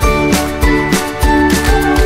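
Background music with a steady beat of about three drum hits a second under held melodic notes.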